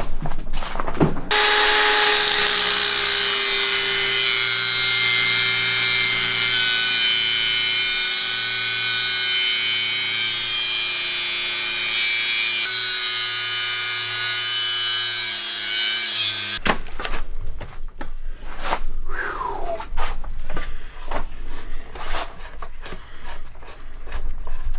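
Angle grinder cutting a steel jack post to length, a steady high whine whose pitch sinks slowly under load for about fifteen seconds, stopping abruptly. After that come scattered metal knocks and clinks as the trimmed jack post is set in place.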